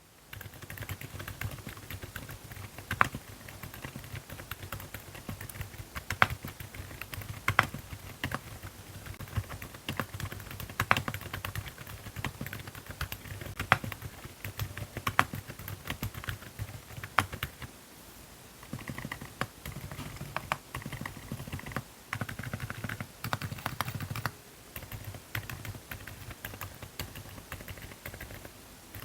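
Continuous fast typing on a Keychron Q10 Pro Max mechanical keyboard with Keychron Silent Banana switches, gasket-mounted and fully foamed. A dense run of soft keystrokes, with a sharper, louder strike every second or two.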